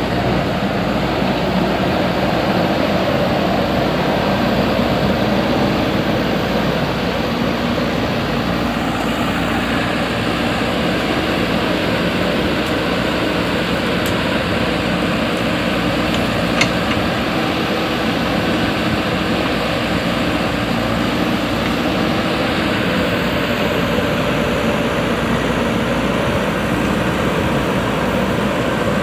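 Heavy diesel engine of a backhoe loader or tractor running steadily, with one short sharp knock about two-thirds of the way through.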